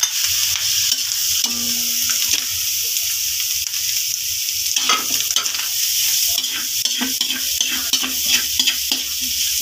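Sliced pork, pork liver and shrimp frying with a steady sizzle in an aluminium wok, stirred with a metal ladle that scrapes and knocks against the pan. The scraping is busiest about halfway through and over the last few seconds.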